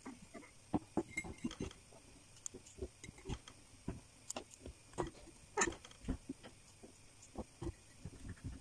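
Whole cucumbers packed by hand into a glass jar: irregular light knocks and taps of cucumbers against the glass and against each other.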